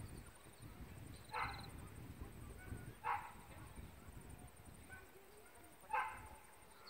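A dog barking faintly: three single short barks, spaced a second or more apart.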